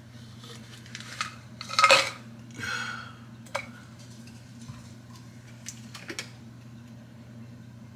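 Clinking and knocking of small items, such as bottles and containers, handled on a kitchen counter: a few short clatters, the loudest about two seconds in, then a few sharp clicks around six seconds. A steady low hum runs underneath.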